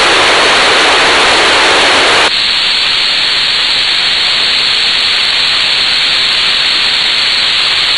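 Loud, steady hiss of FM receiver noise from an RTL-SDR software radio tuned to an empty 2-metre channel, with no signal present. About two seconds in the hiss changes tone and drops slightly as the tuning steps to another frequency.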